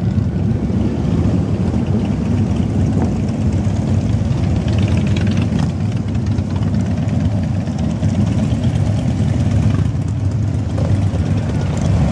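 A steady stream of heavy cruiser and touring motorcycles riding slowly past, their engines giving a continuous deep, low sound that overlaps from one bike to the next.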